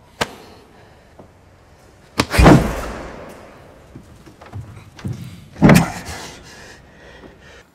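Two heavy thuds about three seconds apart, each with a long fading echo, after a sharp click just after the start: blows struck in a scuffle as a man is grabbed by the hair and his head forced down.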